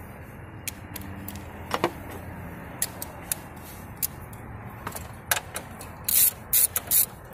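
Scattered metal clicks and taps of a battery terminal clamp being handled and seated on a car battery post, then about six seconds in the quick repeated strokes of a ratchet wrench tightening the clamp, about three a second.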